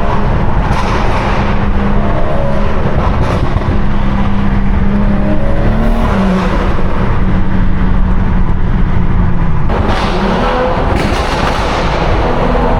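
BMW 340i's turbocharged inline-six with a stage 2+ tune and valved exhaust, running steadily on the move with an even engine note. The sound changes abruptly about ten seconds in.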